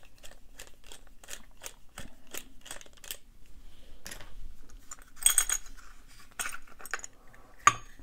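Phillips screwdriver backing a small screw out of the padlock's top cap: a quick, even run of small clicks, about three to four a second, for about three seconds. A short metallic clatter with a high ring comes about five seconds in, and one sharp click near the end, as the loosened lock parts are handled.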